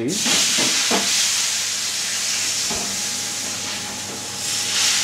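Water poured onto a preheated metal baking tray inside a hot oven, boiling off at once with a loud hiss and sizzle of steam to steam the baking bread. The hiss eases a little about four seconds in, then swells again.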